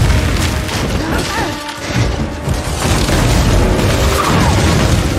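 Action-film sound mix: heavy explosion booms over a loud dramatic music score, with a brief drop in level about a second and a half in.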